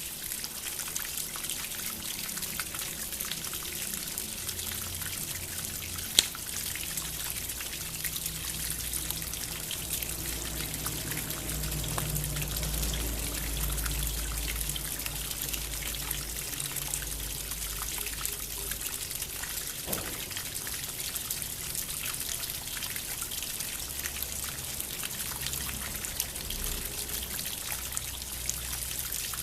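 Water from a bamboo fountain trickling and pouring steadily, with soft low sustained tones underneath and a single sharp click about six seconds in.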